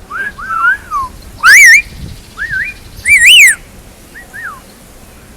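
African grey parrot whistling: a string of short whistled notes that glide up and down, two of them loud, about one and a half and three seconds in, with quieter notes between.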